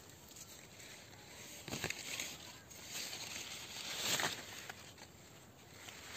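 Faint rustling of leaves, with a few soft crackles about two and four seconds in.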